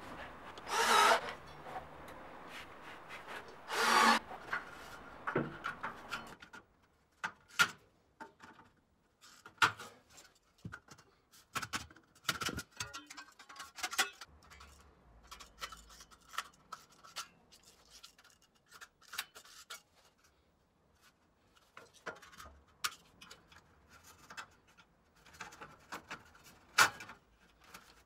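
Galvanised steel drywall framing profiles (F47 channels) being handled and fitted by hand: two scraping rubs of metal in the first four seconds, each about half a second long, then scattered light clicks and taps of the metal.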